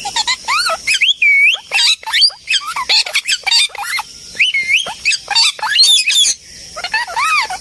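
Parrots squawking and chattering, many short, quick calls overlapping one another, with a few longer arching calls near the end.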